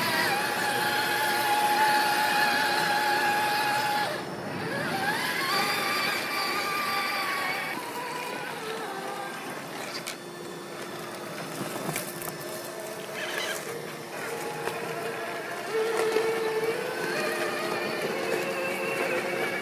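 The electric drive motor and gearbox of an Axial SCX6 1/6-scale RC rock crawler whine as it crawls over rock, the pitch rising and falling with the throttle. A few sharp clicks come around the middle.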